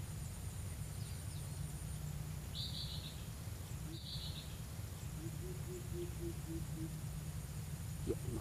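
Outdoor riverside ambience: a steady low rumble under a faint, steady high insect drone. Two short high chirps come in the first half, and a bird gives a run of about eight short, evenly spaced low notes past the middle.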